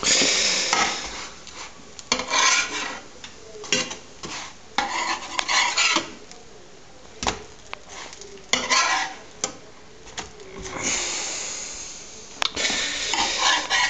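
A spatula scraping against a frying pan as a slice of bread is pushed around in the fat, in a string of irregular scrapes with short pauses between.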